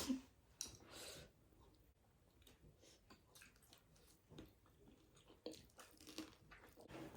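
Faint chewing of food, with soft, irregular mouth clicks spread through the quiet.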